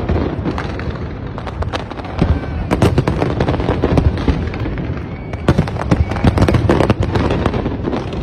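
Fireworks display: a dense, continuous barrage of overlapping bangs and crackles from bursting shells, with no let-up.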